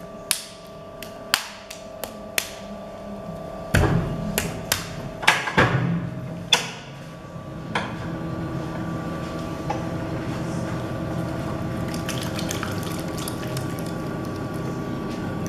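Electric potter's wheel humming while a ball of wet clay is slapped by hand in a quick series of sharp, wet smacks over the first seven seconds. From about eight seconds in the wheel runs at a steady, slightly higher hum, with faint wet sounds of hands and water on the clay.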